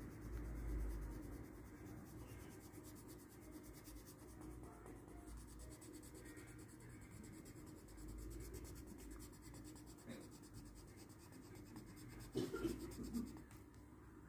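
Green coloured pencil scratching steadily on paper, faint, as it shades in an area of a printed map, with a short louder rub near the end.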